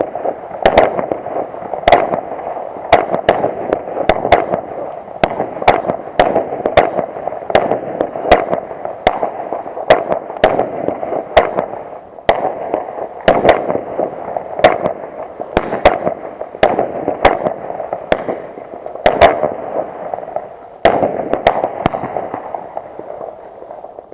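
Ground-launched firework battery firing a long series of shots: sharp bangs one or two a second over a continuous rushing hiss of burning composition, dying away right at the end.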